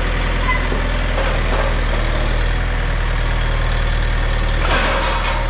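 A large engine idling steadily, with a brief rush of noise near the end.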